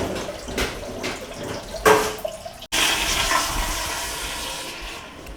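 Water running and splashing in a small tiled restroom. After a sudden break about two and a half seconds in, a toilet flushes with a loud rush of water that fades away over about two seconds.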